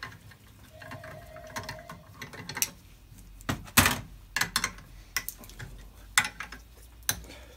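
Scattered metal clicks and clinks from a brake-line double-flaring tool clamped in a bench vise as it is handled after the flare is made: the ratcheting wrench and pusher come off the flaring bar. The loudest knock comes about four seconds in.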